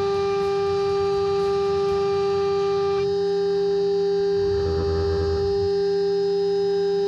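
CNC router spindle turning a 14 mm Diatop FRD.303 compact nesting router bit at 24,000 rpm, a steady high whine with overtones, as it cuts a coated bilaminate panel. A short low rumble comes in about five seconds in.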